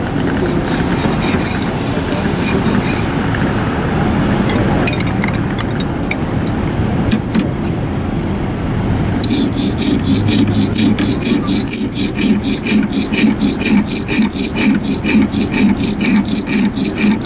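A whetstone rubbed back and forth by hand along a clamped steel knife blade, rasping in steady strokes at about three a second from about nine seconds in. Before that, a steady rumble of street traffic with a few scattered scrapes of a hand scraper on the blade.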